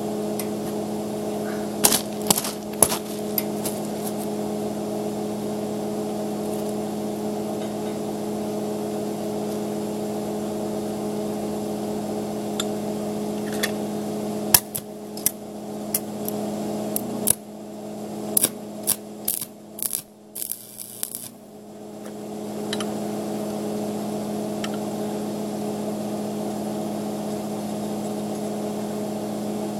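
Arc welder humming steadily, with a few sharp crackles about two seconds in and a cluster of crackles and clicks about halfway through as the stick electrode scratches and sticks without holding an arc, which the welder puts down to a poor ground connection.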